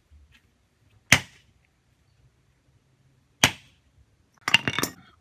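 Hand hammer striking a small metal tin on a wooden block: a single blow about a second in, another a little past the middle, then a quick run of several strikes near the end.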